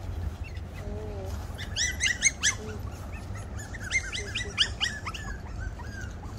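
Havanese puppies yipping at play: high-pitched squeaky yips in two quick runs, about two seconds in and again about four seconds in.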